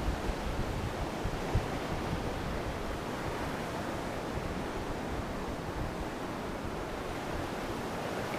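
Steady rushing noise of wind and sea surf, with a few short low buffets of wind on the microphone in the first couple of seconds.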